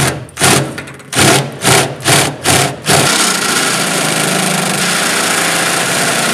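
Cordless drill running a step bit into the steel wall of a pickup-truck bed, enlarging a pilot hole toward 1 inch. It starts with about six short trigger bursts, then from about three seconds in runs steadily as the bit cuts through the sheet metal.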